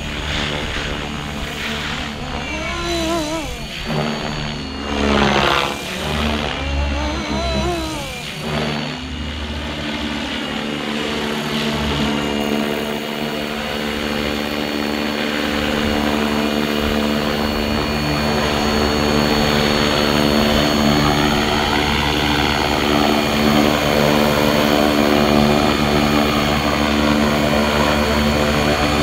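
Fly Wing FW450 V2 electric RC helicopter in flight on a 3S LiPo: the steady whine and buzz of its motor and rotor. Its pitch rises and falls several times in the first ten seconds and again near the end, and it grows gradually louder.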